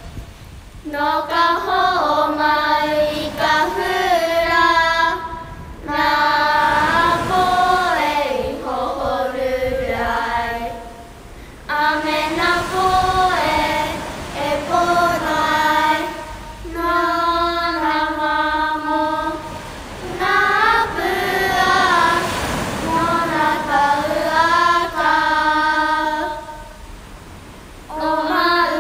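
Hawaiian song for hula sung by a group of voices, in phrases of a few seconds separated by short pauses, with little instrumental backing.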